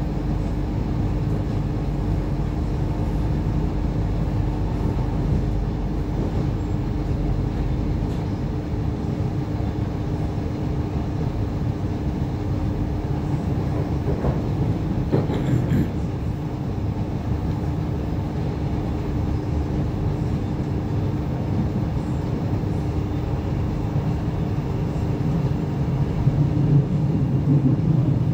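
Cabin sound of a DART 8520 class electric multiple-unit train running: a steady rumble of wheels on the rails under a steady hum. There is a short clatter about halfway through, and the rumble grows a little louder near the end.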